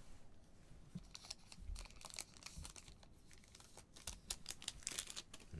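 Foil wrapper of a 2020-21 Panini Chronicles basketball card pack being torn open and crinkled: faint, irregular crisp crackles starting about a second in.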